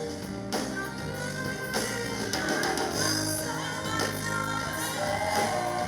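A praise-and-worship song: voices singing over a band with steady bass and regular drum beats.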